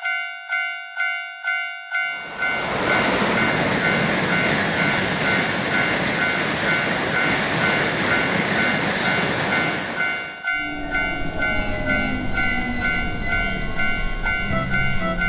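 Japanese railroad crossing bell ringing its steady "kan-kan", about two and a half strikes a second. After about two seconds a train passes with a loud rush while the bell keeps ringing over it. The train noise cuts off about ten seconds in and cheerful music starts.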